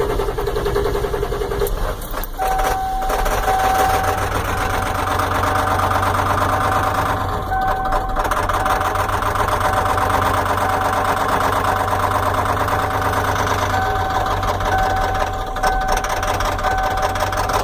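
Ford F-250 diesel engine idling with a steady rapid clatter and knock, which the owner takes for a bad injector. A thin steady tone comes and goes over the idle.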